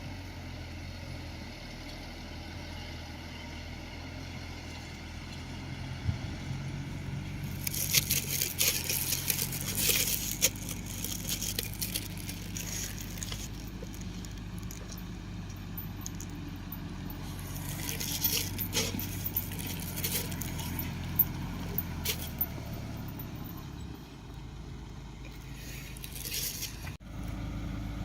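Shantui DH17C2 crawler bulldozer's diesel engine running steadily under work. Twice, about a third of the way in and again past the middle, there are stretches of scraping and clattering as the machine works the ground.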